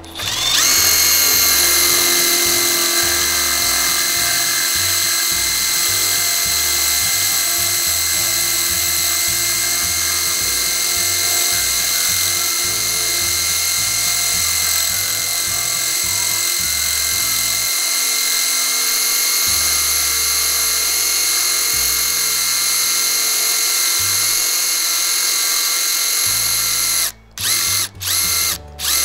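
HiKOKI 10.8 V cordless drill running continuously as it bores a 4.5 mm bit into a thick stone slab, a steady high whine. Near the end it stops and restarts three times in quick succession.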